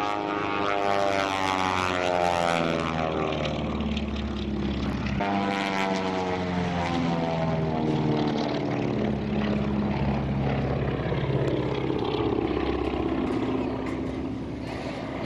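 Twin-engine piston propeller airplane flying past in an aerobatic display. Its engine note slides down in pitch as it goes by, and falls again after about five seconds.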